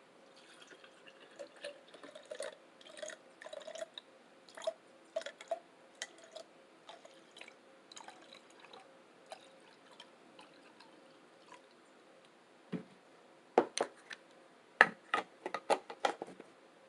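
Close-miked wet mouth sounds of eating: chewing and lip-smacking as a run of small, irregular wet clicks. They stop for a few seconds, then come back as a louder cluster of smacks near the end.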